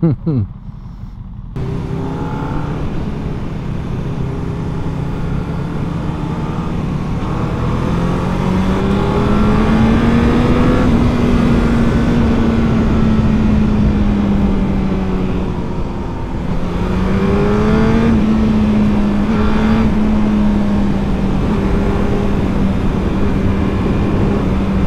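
Honda sport motorcycle riding at speed: the engine hums under a heavy rush of wind that sets in about a second and a half in. The engine note climbs slowly for about ten seconds and eases off, then dips briefly around the middle and climbs again.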